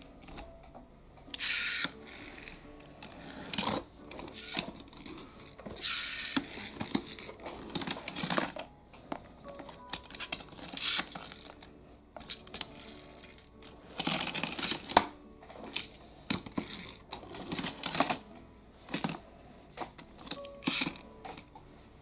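RMZ City die-cast pullback Hummer H3 toy car being handled and run on a tabletop: a dozen or so irregular bursts of clicking, rattling and scraping as its pullback spring motor is wound and the metal car is set down and rolls. Faint music underneath.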